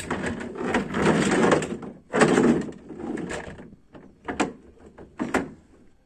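Plastic toy dump truck scraping and sliding over a ribbed pickup-bed liner in two long rubbing stretches, followed by a few sharp plastic knocks.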